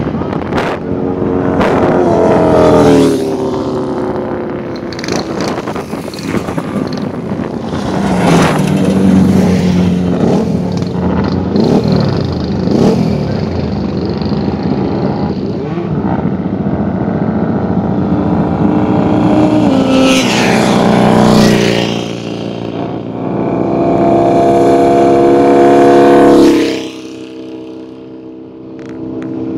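Racing motorcycle engines revving hard and passing one after another, the pitch falling as each goes by. A loud high-revving engine near the end drops away suddenly.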